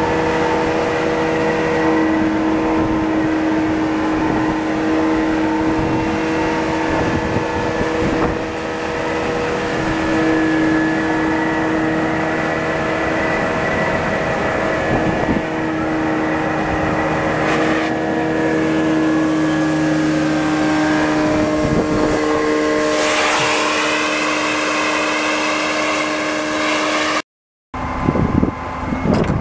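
Guzzler vacuum unit on a vacuum truck running steadily under suction, a loud machine drone with a steady whine. About three quarters of the way through, a whistle sweeps up in pitch. Near the end the sound cuts off suddenly and is followed by gusty noise.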